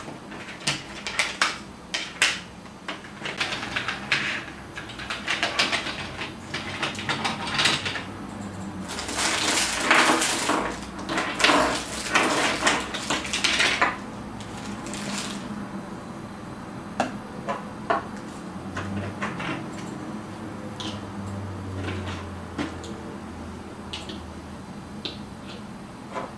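Hard plastic toy construction pieces clicking and clattering as they are handled, with a denser run of rattling in the middle and scattered single clicks after it.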